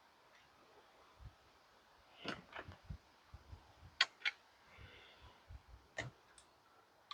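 Faint scattered knocks and sharp clicks of handling, with no saw running; the sharpest clicks come about four and six seconds in.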